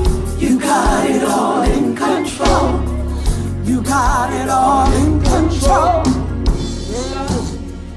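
Live gospel band: a lead singer and backing singers over drum kit and bass, the kick drum keeping a steady beat.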